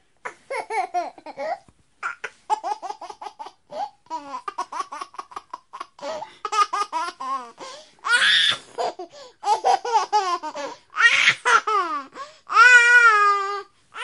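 Baby laughing: runs of quick, pitched chuckles and giggles broken by short pauses, a few breathy shrieks, and a long high squeal near the end that is the loudest part.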